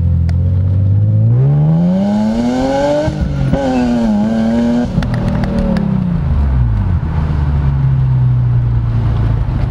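BMW M Roadster's straight-six engine pulling hard under full throttle. The revs climb for about two seconds, drop quickly at an upshift, then the engine eases off and falls back to a steady low running pitch, with wind noise in the open cockpit.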